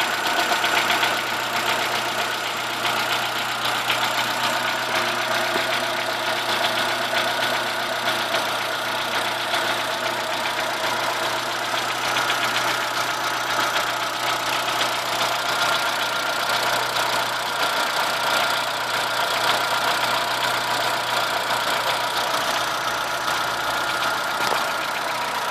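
Chevrolet Corsa 1.0 8V VHC engine idling steadily with an abnormal noise that stops when the alternator belt tension is released. A replacement alternator and a new tensioner have not cured it, and the owner suspects a worn crankshaft main bearing or bearing shell, though it could be something else.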